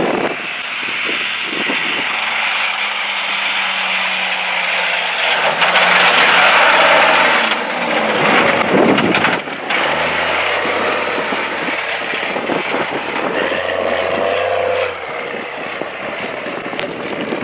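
Mega mud truck's engine running and revving as the truck drives past up close, loudest about six seconds in, then pulling away up a dirt mound.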